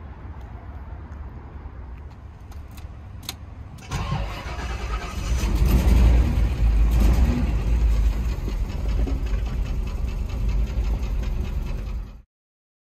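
A few clicks, then about four seconds in the 1982 Rolls-Royce Silver Spur's 6.75-litre V8 starts, builds up for a couple of seconds and settles into steady running. The sound cuts off abruptly just after twelve seconds.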